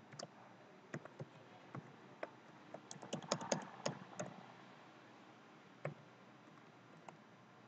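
Computer keyboard keystrokes: faint scattered single key presses, with a quick run of several keys about three to four seconds in.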